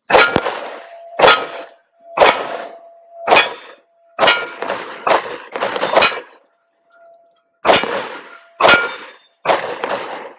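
Gen 2 Glock 23 pistol in .40 S&W firing about ten shots at roughly one a second, each with a ringing tail, with one longer pause of nearly two seconds partway through.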